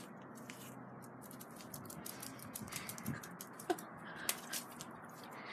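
Faint sounds of a small dog playing fetch with a tennis ball: scattered taps and clicks, and a short yip with a falling pitch about three and a half seconds in, over a steady hiss.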